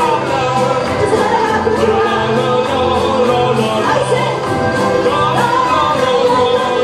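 Live band playing an upbeat song: acoustic guitar and singing over low bass notes and a quick steady beat.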